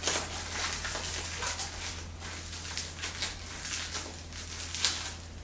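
Clear plastic wrapping crinkling and rustling in irregular crackles as it is handled and pulled off a small plant pot, over a steady low hum.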